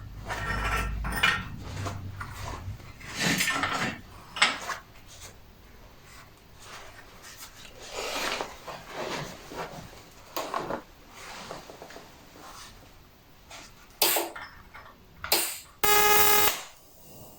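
Small metal brackets and hand tools clinking and knocking as they are handled and set down, a scattered run of metal clatters. Near the end comes one sharper clang that rings on for about half a second.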